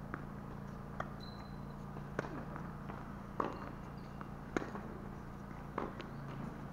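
Tennis ball being struck back and forth in a rally: six sharp pops about a second apart, over a steady low hum.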